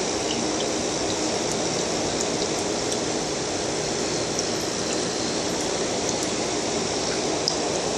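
Steady rush of moving water in a small aquarium tank, with a few faint ticks scattered through it.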